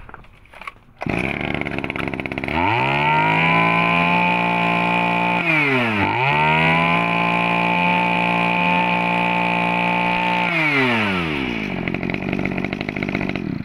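Small 20cc two-stroke brush cutter engine starts about a second in and idles briefly, then revs up to a steady high pitch. The revs dip once and pick up again about six seconds in. It then drops back to idle and cuts off near the end.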